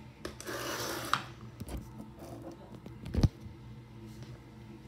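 Soft rubbing and rustling of hands handling long hair, with a sharp click about a second in and a dull thump a little after three seconds in.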